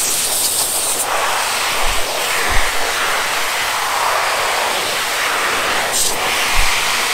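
Pet grooming blower running steadily, its air blasting through the hose nozzle into a wire cage to dry a wet Persian cat. The rushing sound shifts about a second in as the nozzle is moved.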